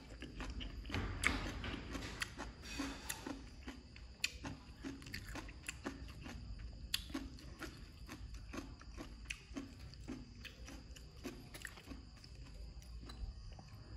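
A person chewing and crunching mouthfuls of green papaya salad, with many small wet clicks and smacks in an uneven rhythm.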